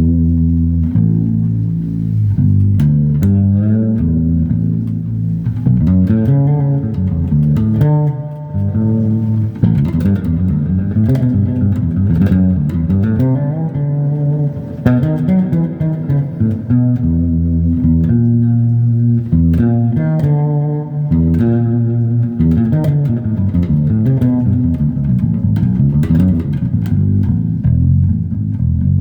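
Fretless bass guitar played as a continuous line of plucked low notes, one after another.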